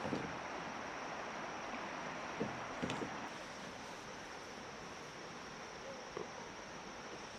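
Steady rush of flowing river water, with a few light knocks: one at the start, a quick cluster between two and three seconds in, and a faint one near the end.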